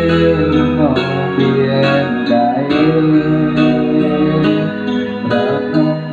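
Instrumental intro of a pop song: a guitar melody with sliding notes over keyboard chords and a steady beat.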